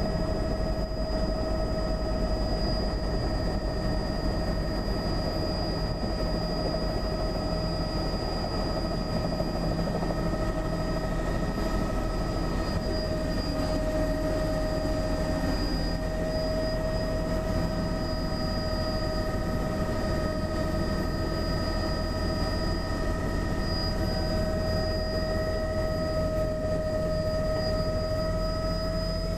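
Helicopter running steadily, heard from inside its cabin, as it settles onto a creek gravel bar: a dense rotor and engine noise with a steady high whine over it.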